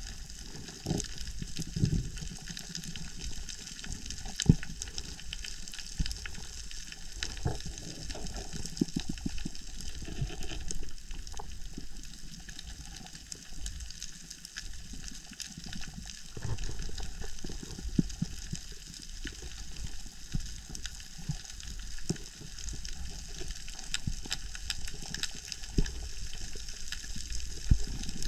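Underwater reef ambience: a constant crackle of many fine clicks, typical of snapping shrimp on a coral reef, over irregular low rumbling surges of water moving past the camera as the diver swims.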